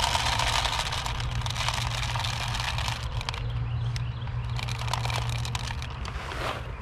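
Dried bean seeds poured into the plastic hopper of an Earthway push seeder, a dense rattle of seeds, strongest in the first three seconds and picking up again after a short lull. A steady low hum runs underneath.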